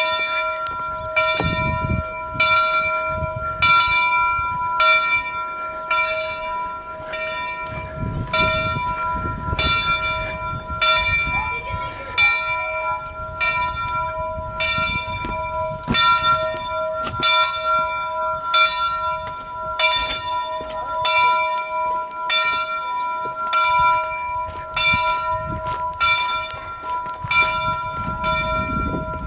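A large metal bell rung steadily over and over, about three strikes every two seconds, its ringing sustained between strokes.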